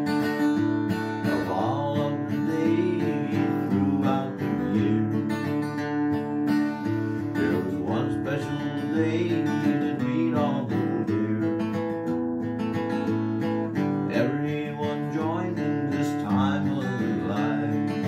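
Steel-string acoustic guitar strummed in a steady rhythm, playing an instrumental passage of a country-style song.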